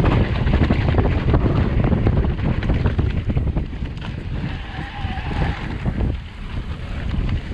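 Wind buffeting the microphone as a loud low rumble, with many short sharp cracks scattered through it. A faint wavering tone sounds briefly about five seconds in.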